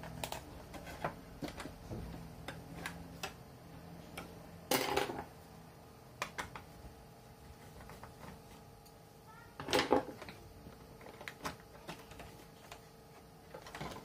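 Scattered small clicks and knocks of hands and a screwdriver handling parts inside an opened plastic water-heater casing, with two louder, longer noises about five and ten seconds in. A faint steady hum runs underneath.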